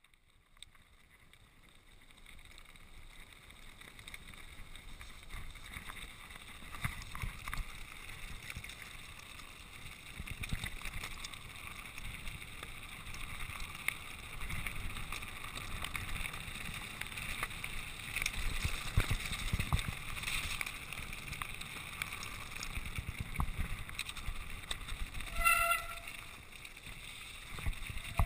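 Mountain bike riding down a rough stony track: tyres crunching and clattering over gravel and rocks, the bike rattling, and wind buffeting the microphone, growing louder as the speed builds. A brief high squeal about three seconds before the end.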